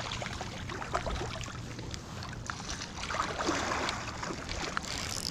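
Water splashing and sloshing in a shallow river: a hooked brown trout thrashing at the surface and a person wading through the current, the splashing densest a little past the middle.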